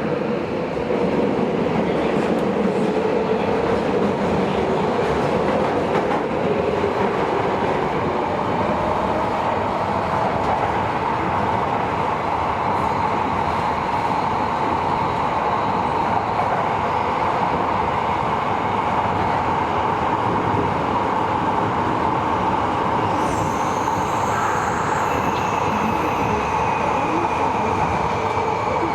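Tobu 70000 series subway train running between stations, heard from inside the car: a loud, steady rumble of wheels and traction equipment with a steady hum. Thin high-pitched tones come in over the last few seconds.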